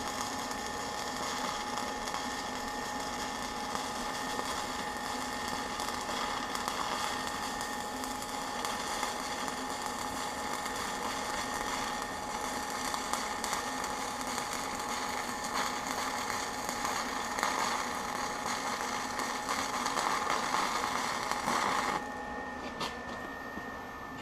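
Stick-welding arc crackling and hissing steadily as the electrode is run up a vertical butt weld at about 80 amps. The arc cuts off about two seconds before the end, leaving a steady high hum.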